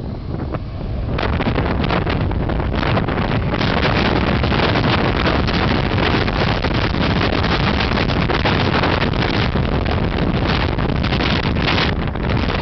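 Four-engine jet airliner's engines at takeoff power, their jet blast hitting the microphone as a loud, steady rush of noise that comes on about a second in.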